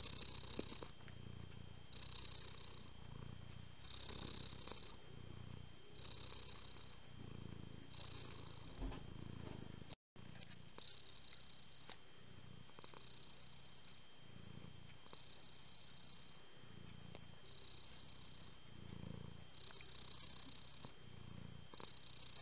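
Domestic cat purring, rising and falling about once a second with its breathing, with a brief dropout about ten seconds in.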